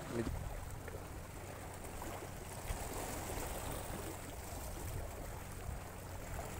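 Steady outdoor water noise with a low wind rumble on the microphone, and a few faint clicks from handling a spinning rod and reel.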